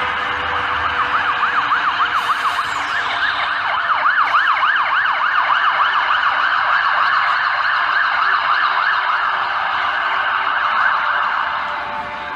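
Several emergency vehicle sirens sounding at once in a fast yelp, their pitch rising and falling about four times a second, over city street traffic noise.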